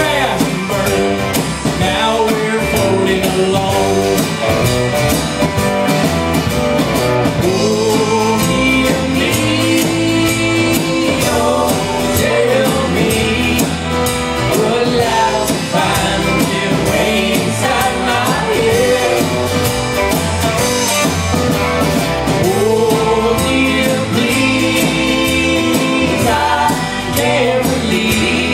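Live band playing a song: acoustic and electric guitars, bass guitar, drum kit and keyboard, with singing over the top.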